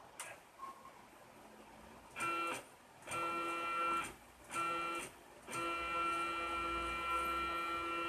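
A CNC router's stepper motors whine at one steady pitch in three short moves that start and stop abruptly, then run continuously from about halfway through.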